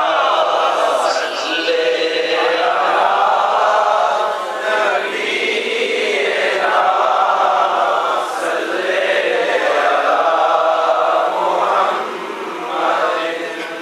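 A group of men's voices chanting an Urdu naat, a devotional poem in praise of the Prophet, together in a continuous sung chant.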